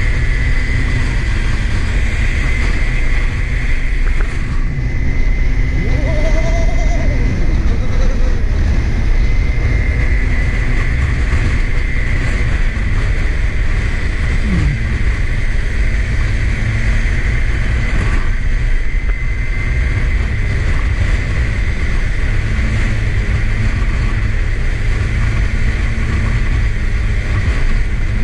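Small street-kart engine running steadily at cruising speed, with a steady high whine over it and wind rushing over the microphone.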